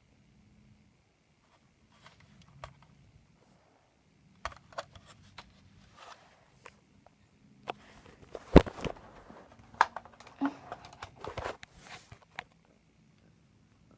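Scattered clicks, knocks and rustles of things being handled, irregular and growing busier in the second half, with the loudest knock about eight and a half seconds in.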